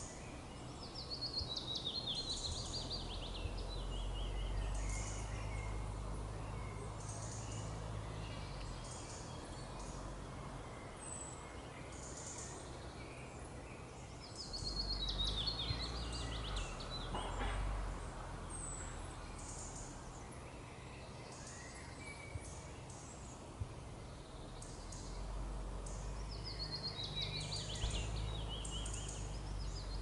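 Forest birdsong: a songbird repeats a short phrase of notes stepping down in pitch three times, about every twelve seconds, while other birds give short high calls in the background. A low rumble underlies it, louder during the song phrases.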